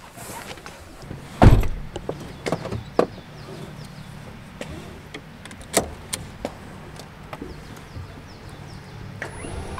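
Car door shut with one heavy thud about a second and a half in as someone gets into the driver's seat, followed by a few sharp clicks and rustling as the seat belt is pulled across and buckled.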